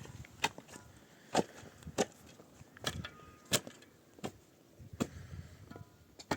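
A series of sharp knocks or strikes, about eight at uneven intervals of roughly half a second to a second, typical of hand work on wood or building materials.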